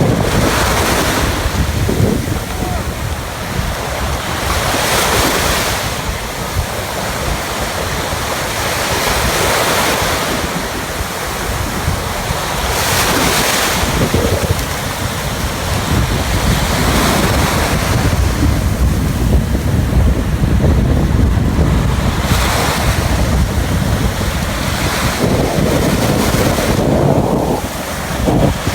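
Ocean surf breaking on the shore, the wash swelling and fading every few seconds, with heavy wind buffeting the microphone.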